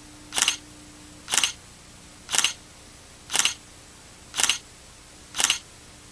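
Camera shutter clicks, six of them evenly spaced about a second apart, over a faint steady hiss and low hum.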